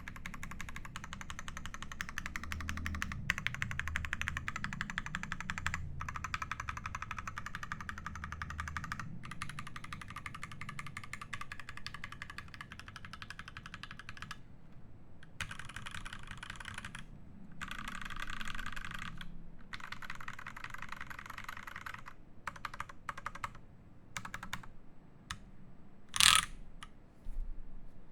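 Typing on an IRON 180 mechanical keyboard with lubed Gateron Ink Black V2 linear switches in a brass plate under GMK keycaps: a fast, steady stream of keystrokes broken by a few short pauses. Near the end comes one much louder sharp sound.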